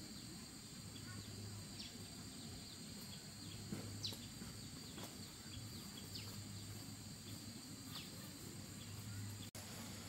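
Forest ambience: a steady high insect trill, with short falling chirps about once a second, which are likely birds. The sound cuts out for an instant near the end.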